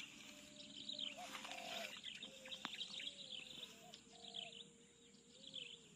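Faint, high chirps of small birds, repeated about once or twice a second, over a thin, slightly wavering steady tone. A few soft rustles come in the first half.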